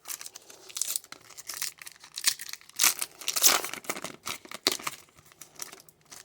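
Foil trading card wrappers being torn open and crinkled by hand, in a quick run of rustles and rips that is densest in the middle and thins out near the end.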